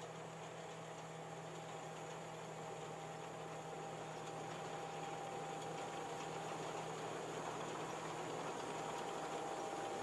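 Tracked combine harvester running steadily with a low hum and a faint whine as it cuts standing grain, growing gradually louder as it comes closer.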